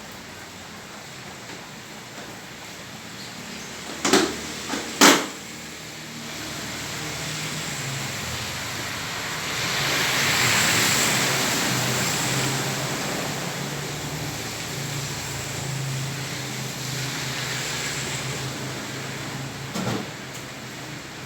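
Steady rain on a flooded street while a motor vehicle passes through, its sound swelling to a peak about halfway and fading away. Two sharp knocks about four and five seconds in are the loudest moments.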